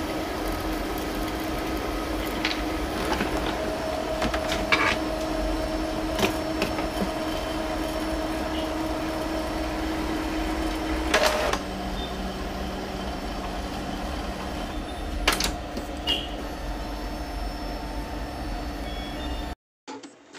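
Epson L3110 inkjet printer mechanism running with a steady mechanical hum, scattered clicks and knocks, and a change in its tone about halfway. It cuts off suddenly near the end. The printer has a grating 'kor-kor' noise that the repairer traces to a faulty head-belt (carriage) motor.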